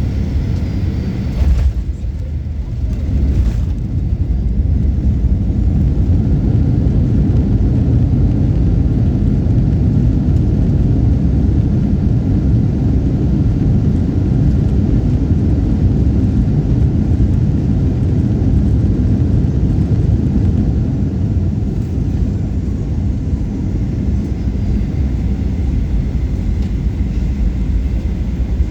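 Boeing 737-800 cabin noise during landing: a steady low rumble of engines and airflow. Two brief knocks come about a second and a half and three and a half seconds in, then the rumble grows louder and stays loud.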